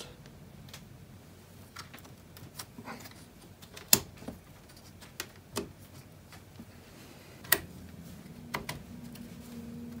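Scattered sharp clicks and light knocks as Corsair Vengeance RGB Pro memory sticks are handled and pressed into the motherboard's RAM slots, the slot latches snapping shut. Two louder clicks come about four and seven and a half seconds in.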